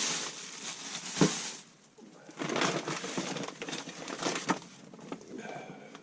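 Rustling and handling noises as hand tools are sorted, with one sharp knock about a second in and scattered small clicks a little later.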